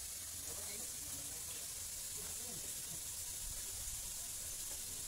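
Steady background hiss with a low rumble underneath and faint, distant voices.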